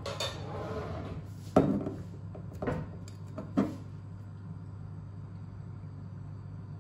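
Cookware being handled on a kitchen stove: three sharp clanks about a second apart in the first four seconds, over a steady low hum.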